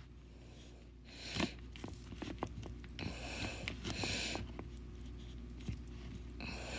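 Faint handling noises: soft rustling with scattered small clicks and taps, one slightly louder tap about a second and a half in.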